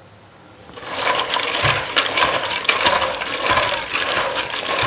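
A hand swishing and rubbing raw in-shell peanuts in water in a metal pot to wash them: water sloshing with many small clicks of shells knocking together, starting about a second in.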